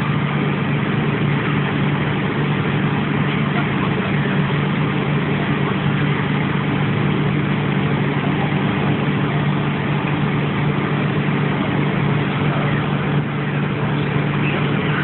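An engine running steadily at idle, a constant low hum that neither rises nor falls.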